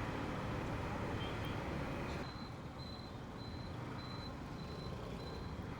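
Wind and traffic rumble on a helmet-mounted mic during a motorcycle ride, easing about two seconds in; from then on a high electronic beep repeats about every half second.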